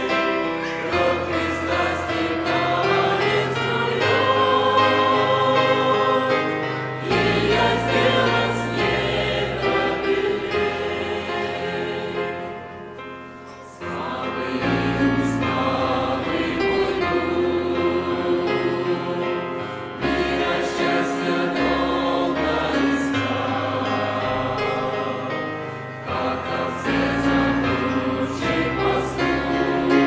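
A choir singing a Russian hymn in sustained chords. The sound thins and dips for about two seconds near the middle, at the break between the chorus and the next verse.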